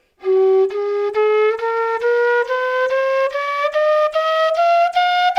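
Quena (Andean notched-end flute) playing an ascending chromatic scale from G up to the G an octave above, in even semitone steps of about two and a half notes a second; the sharps are made by half-covering the finger holes.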